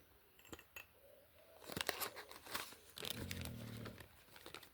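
Packaging crinkling and tearing as small items are unwrapped, with scattered light clicks and a short low hum about three seconds in.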